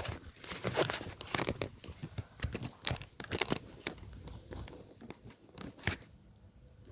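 Irregular crinkling and crackling clicks of objects being handled, dense for the first few seconds, then thinning out.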